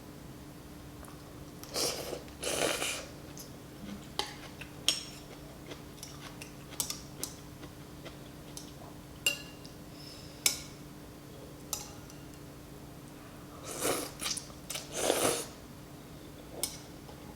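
Close-up eating sounds from a bowl of noodle soup: a spoon clicking against the bowl, chewing, and two spells of longer slurps, about two seconds in and again near the end. A faint steady hum sits underneath.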